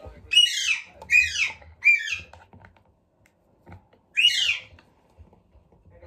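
Alexandrine parakeet giving loud, harsh squawks, each dropping in pitch: three in quick succession, then a fourth a couple of seconds later.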